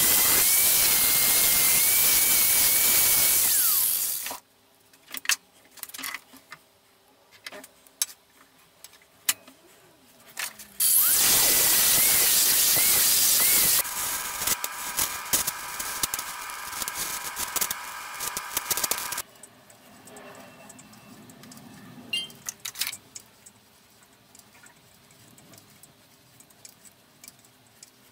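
Angle grinder with a grinding disc running against steel held in a bench vice: once at the start for about four seconds and again for about three seconds, with scattered light clicks between. Then about five seconds of an electric welding arc, a steady hiss with a buzzing hum, as brass is welded onto the steel knife. Faint metallic clicks and ticks follow.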